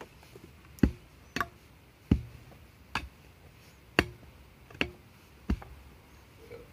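An iron digging bar being driven into damp soil and roots, with about seven dull strikes, one roughly every three-quarters of a second.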